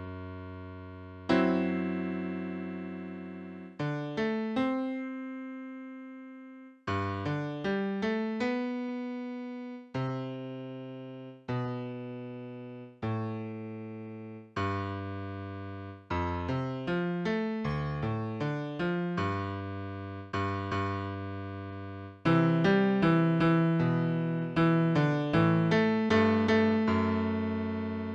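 Solo keyboard music with a piano-like tone. Slow chords and single notes are struck and left to ring and fade. From about three quarters of the way in it turns busier, with quick repeated chords.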